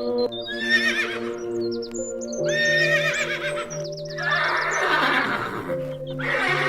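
Animal calls over calm background music with long held notes: two high, shaking cries, then two rougher, noisier calls.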